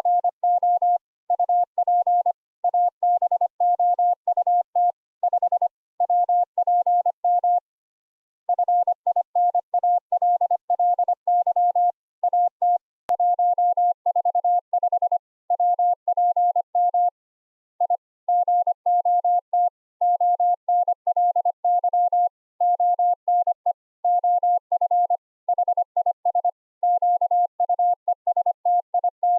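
Morse code (CW) audio sent over an internet audio call: a single steady tone keyed on and off in rapid dots and dashes, grouped into words with short gaps. The sending pauses for about a second twice, once about eight seconds in and again near seventeen seconds.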